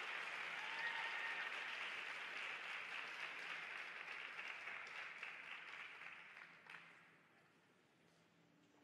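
Small crowd applauding, the clapping dying away about seven seconds in.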